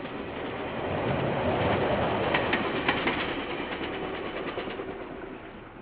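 A lone KiwiRail diesel locomotive passing by, its engine and wheel noise swelling and then fading away. There are sharp clicks from its wheels over the rail joints, a cluster about two to three seconds in and a few more near four and a half seconds.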